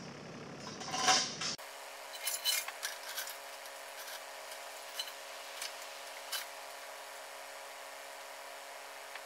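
Metal clinks and knocks from tie-down gear being handled on an equipment trailer: a loud clank about a second in, a cluster of clinks a second later, then single clinks every second or so over a faint steady hum.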